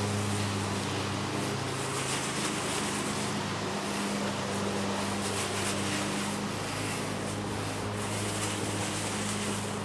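An engine idling steadily, a low even hum with a slight change in pitch a few seconds in, under a constant hiss.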